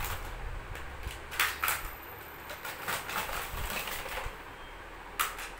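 Plastic toy train-track pieces clicking and clattering against each other and the tiled floor as they are lifted out of a plastic tray and set down, in scattered clicks, the sharpest about a second and a half in and near the end.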